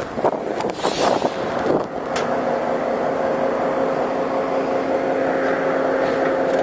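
Added railroad sound effect: a few metal clanks and knocks, then from about two seconds in a steady engine drone with a held hum.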